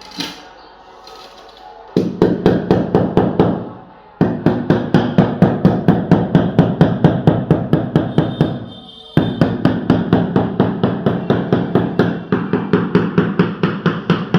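Rapid, even hammer blows, about six a second, in three runs broken by short pauses near two, four and nine seconds in.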